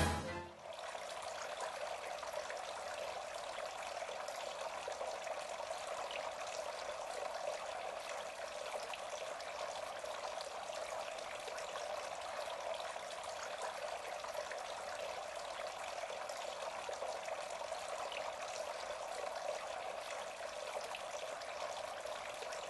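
Birds Delight garden fountain running: water trickling and pouring steadily, without a break.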